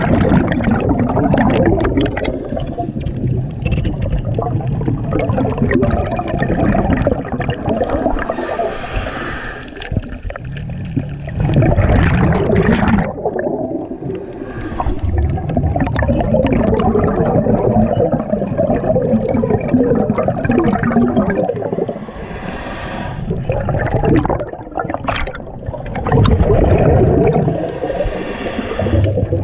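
Scuba diver breathing through a regulator underwater: hissing inhalations every several seconds and gurgling exhaust bubbles, heard muffled through the water.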